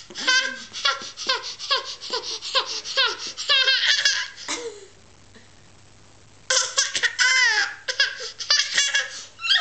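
Toddler laughing hard in quick runs of high-pitched, falling 'ha' syllables, breaking off for about two seconds midway, then laughing again.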